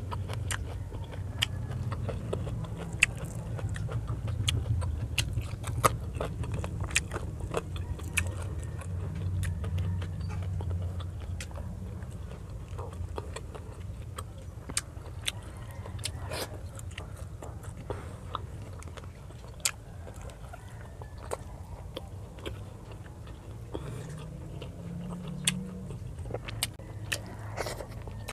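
Close-miked chewing as a person eats fish, rice and radish by hand, with many sharp wet mouth clicks and smacks, over a low steady rumble.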